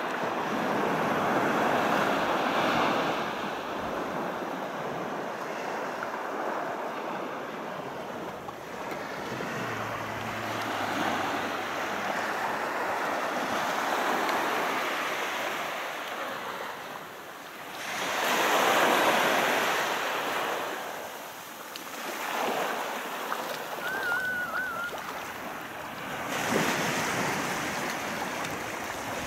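Sea waves breaking and washing up the beach, rising and falling in repeated surges, with wind on the microphone.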